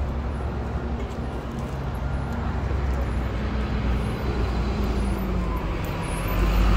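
Road traffic on a busy avenue: a steady low rumble of passing car engines and tyres, swelling near the end as a vehicle passes close.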